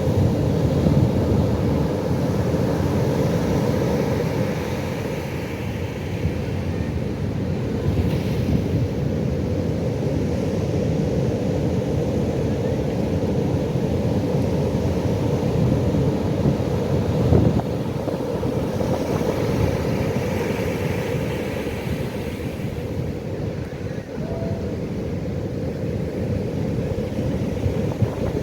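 Pacific Ocean surf: a steady deep rumble of breaking waves with wind buffeting the microphone, and two waves washing in with a brighter hiss, one a few seconds in and one about two-thirds of the way through.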